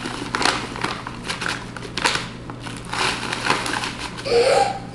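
Plastic bag of Bisquick baking mix crinkling and rustling as it is tipped and shaken into a mixing bowl, adding more mix to cookie dough.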